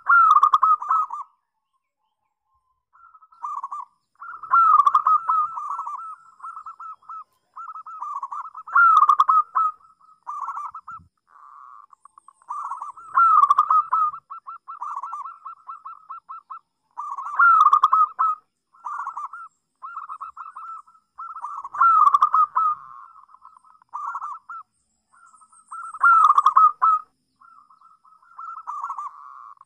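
Local zebra dove (perkutut) cooing: phrases of quick staccato notes, each opening with a louder burst, repeated about every four and a half seconds.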